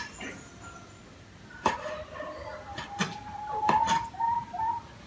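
Kitchen knife slicing boiled pig skin on a wooden chopping board: a few sharp, irregular knocks as the blade strikes the board.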